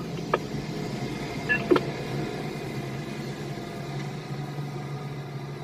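Heavy mining equipment's diesel engine running with a steady low hum, and two short knocks within the first two seconds.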